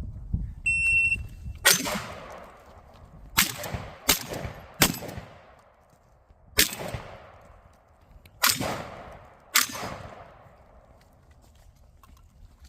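A shot timer's start beep, a single high tone lasting about a second, followed by seven shotgun blasts with echoing tails, irregularly spaced over about eight seconds, three of them in quick succession: a competitor shooting an IPSC shotgun stage.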